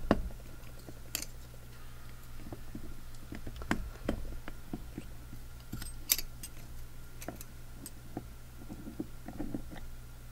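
Scattered light metallic clicks and taps as the steering valve's input shaft and spool are twisted by hand and worked down into the valve housing to engage the cross pin. There is a sharper click about six seconds in, all over a steady low hum.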